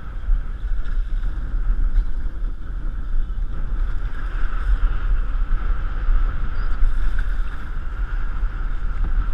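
Steady wind rumble buffeting the camera's microphone over choppy water, with a constant rushing noise and no distinct splashes.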